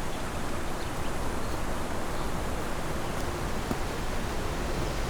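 Rushing river running strong after rainy-season rains: a steady, even roar of water.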